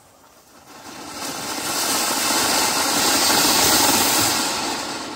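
Flowerpot ground-fountain firework burning: a rushing hiss of spraying sparks that swells from about a second in, peaks, and dies away near the end.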